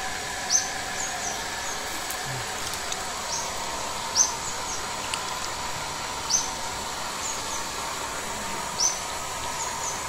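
Short, high-pitched bird chirps over a steady background hiss. Four louder single chirps come roughly two seconds apart, with fainter chirps in between.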